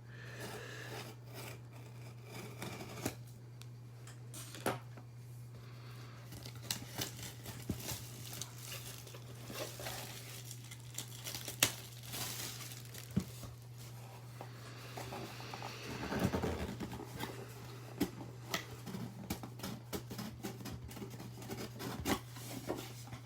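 Hands opening a sealed box of trading cards: scissors snipping, and wrapping tearing and crinkling, with scattered sharp clicks. A steady low hum runs underneath.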